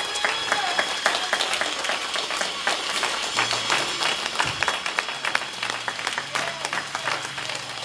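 A small church congregation applauding, with many irregular hand claps.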